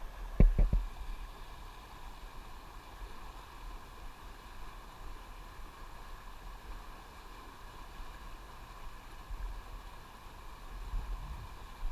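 Fast-moving river water rushing steadily, with a couple of low thumps about half a second in.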